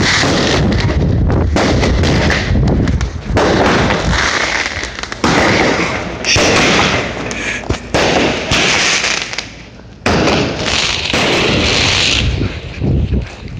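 Loud firework going off in a rapid series of shots: a bang every second or two, each followed by a hissing crackle, with a short lull about ten seconds in before the last bursts.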